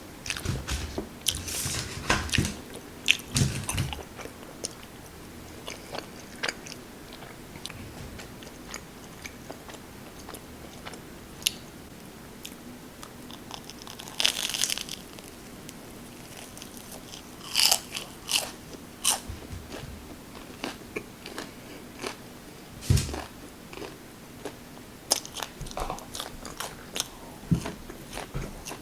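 A person biting and chewing food, with scattered short mouth clicks and a few louder clusters of eating noise about a quarter of the way in and around the middle.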